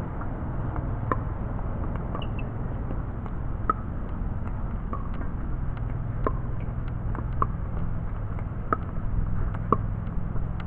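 Pickleball rally: sharp pops of paddles striking the plastic ball, roughly once a second, over a steady low rumble.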